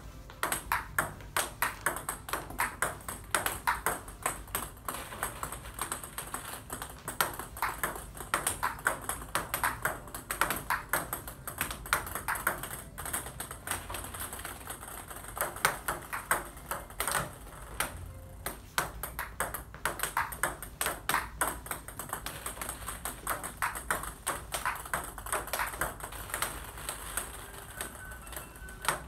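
Table tennis balls struck one after another with a bat faced with long-pimpled rubber without sponge (OX), each hit followed by the ball ticking on the table: a quick run of sharp clicks, several a second, with a few short pauses.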